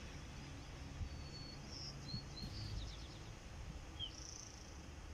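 Outdoor ambience: a few short, high bird chirps over a low, steady rumble of background noise.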